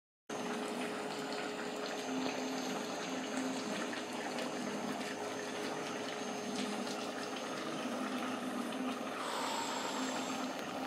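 Thick stew chicken sauce bubbling in a pot on a gas stove: a steady stream of small bubbles popping over a constant low hum.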